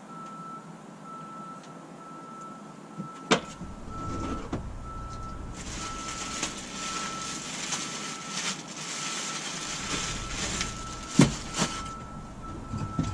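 A high electronic beep repeating at a steady, even pace. A sharp knock comes about three seconds in, a stretch of hissing noise runs from about five to ten seconds, and a couple of thumps come near the end.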